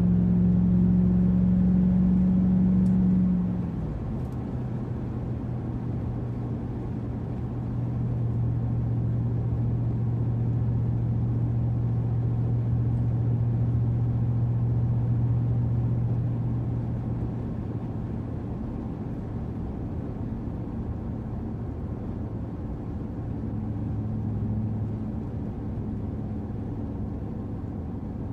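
Chevrolet Avalanche Z71's V8 engine and road noise heard from inside the cab while driving. About three and a half seconds in, the engine note drops to a lower pitch and gets quieter, then holds as a steady cruising drone.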